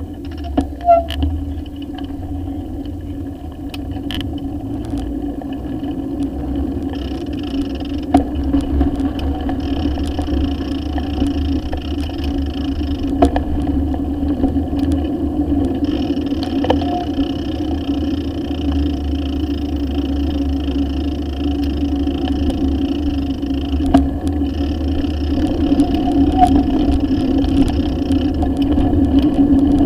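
A bicycle rolling along an asphalt road, heard through a camera mounted on the bike: steady tyre and road hum with wind rumble on the microphone, and occasional sharp knocks from bumps, getting a little louder towards the end.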